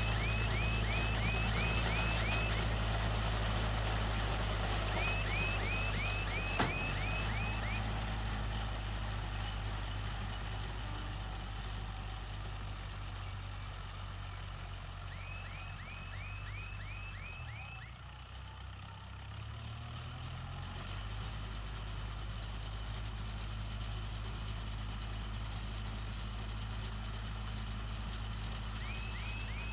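Kubota MU4501 tractor's four-cylinder diesel engine running steadily while working a Bharat baler, its note dipping and wavering for a few seconds about two-thirds through. Several short bursts of rapid high chirps sound over it.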